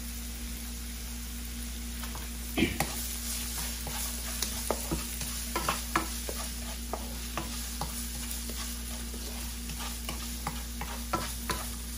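Chopped onion and garlic sizzling in oil in a nonstick wok, with a wooden spatula scraping and tapping against the pan as it stirs them, the irregular clicks starting a few seconds in.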